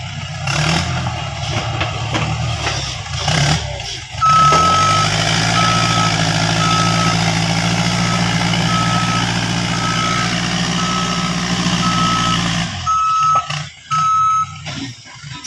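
Heavy earthmoving machine backing up: its reversing alarm beeps steadily, about once a second, over its running diesel engine. The beeping starts about four seconds in and stops shortly before the end, and the engine note drops away a little before the beeping stops.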